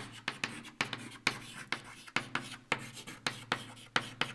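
Chalk writing on a chalkboard: a quick, irregular series of sharp taps and short scrapes, about three or four a second, as letters are stroked out.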